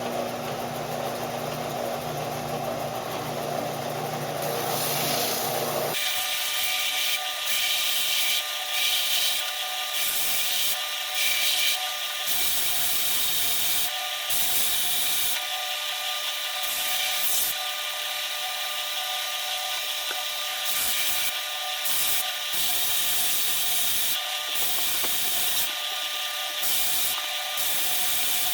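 Power sander running on wooden coasters, smoothing rough sawn edges. A steady motor hum gives way abruptly about six seconds in to a gritty sanding hiss that swells and eases as the wood is pressed against it.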